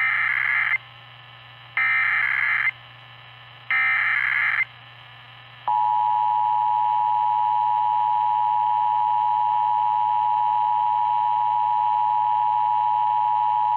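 Emergency Alert System SAME header: three short buzzy data bursts, each under a second and about two seconds apart. About two seconds after the last burst, the EAS two-tone attention signal starts and holds steady. This marks the start of an EAS alert, here a statewide test.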